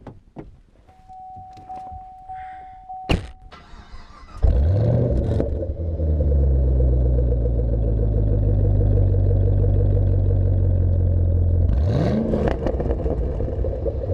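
2015 Chevrolet Camaro ZL1's supercharged 6.2-litre V8 started with a flare of revs about four seconds in, then idling steadily with one short throttle blip near the end. Before it starts there are a few clicks and a steady electronic tone.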